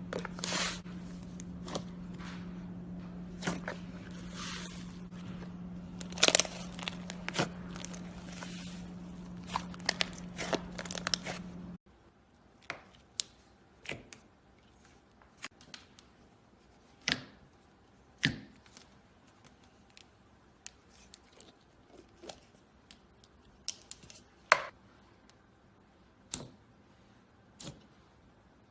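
Slime being squeezed and stretched by hand, giving irregular crackling pops and clicks over a steady low hum. About twelve seconds in, the sound cuts to a quieter take with sparser, isolated pops.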